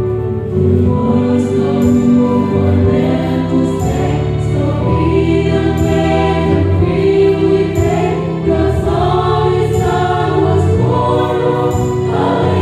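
Mixed choir of men and women singing a hallelujah song together, each voice sung into a handheld microphone.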